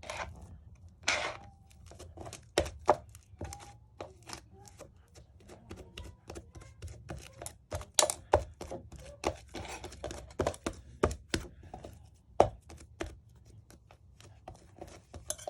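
Irregular taps, clicks and knocks of small hard objects being handled, with a couple of louder knocks, over a steady low hum.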